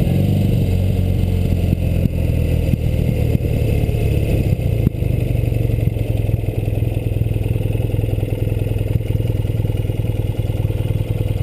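BMW R75/5 air-cooled flat-twin motorcycle engine running at low revs as the bike slows. The revs drop in the first second or so and then hold at a steady low rumble, with a single sharp clack about five seconds in.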